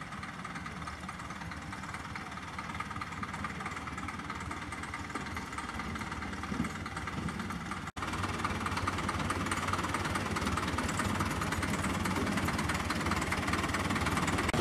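Narrow-gauge diesel locomotive's engine running at low speed as it rolls slowly along the track, growing louder as it comes closer. The sound drops out for an instant just under eight seconds in.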